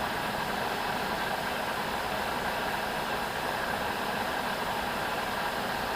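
Steady, even hiss that holds at one level throughout, with no breaks, rhythm or breathing pattern; no snoring is heard.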